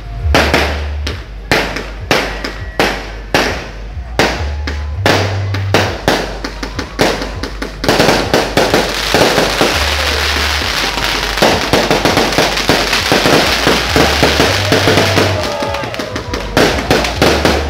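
Fireworks going off: a run of separate sharp bangs, then from about eight seconds in a dense, continuous crackling barrage that thins back to separate bangs near the end. Low bass notes of music play underneath.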